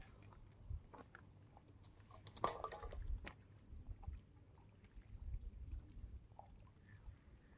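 Faint outdoor ambience of uneven low rumbling gusts, with a short crunching rustle about two and a half seconds in.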